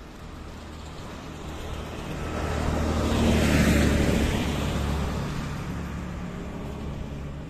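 Diesel rail maintenance vehicle (draisine) passing close by. Its engine drone and wheel noise grow louder as it approaches, peak about three and a half seconds in, then fade as it moves away.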